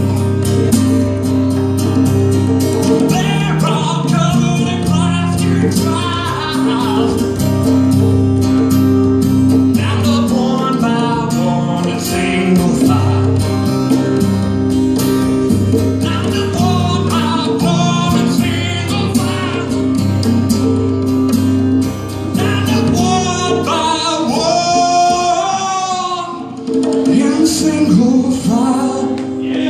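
A man singing over a strummed acoustic guitar and hand-played congas, with a louder, held vocal passage near the end.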